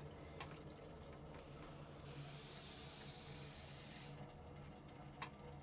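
Faint, steady hum of a running potter's wheel, with about two seconds of hissing in the middle as a wet sponge is rubbed against the spinning wheel head. A few soft clicks come through as well.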